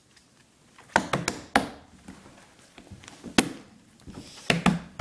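Hands and knees knocking and thumping on a hardwood floor as a person crawls close to the microphone: a few sharp knocks a little after a second in, another a couple of seconds later, and two more near the end.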